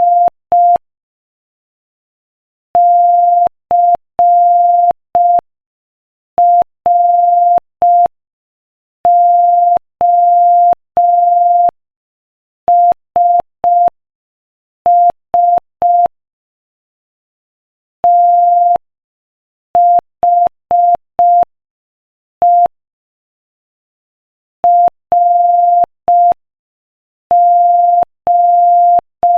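Morse code played as a single steady mid-pitched beep, keyed into short dots and longer dashes with pauses between letters and words, at a slow 5 words per minute. Each beep starts and stops with a faint click.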